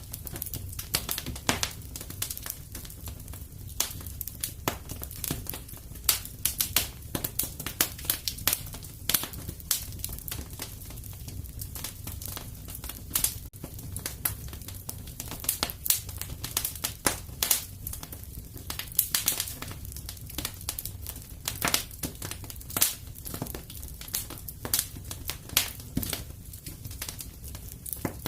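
Wood fire crackling and popping: irregular sharp crackles, several a second with some louder pops, over a low steady rumble of the burning fire.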